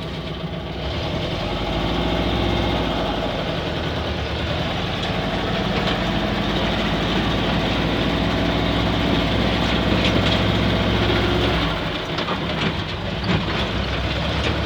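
LuAZ-969A's air-cooled V4 engine running under load as the little 4x4 pulls away towing a trailer. It picks up about a second in, holds steady, and eases off near the end.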